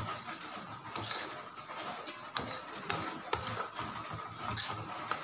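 Metal spatula stirring thick mashed lentils in a metal kadai, scraping the pan, with several sharp clinks against the pan's side from about two seconds in.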